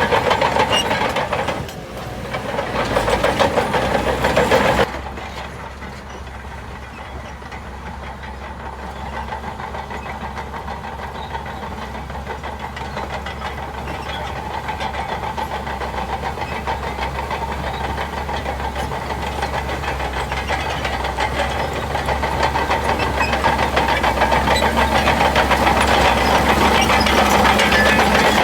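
Shantui DH17 C2 bulldozer's diesel engine running, loud for the first few seconds, dropping off sharply about five seconds in, then gradually getting louder again.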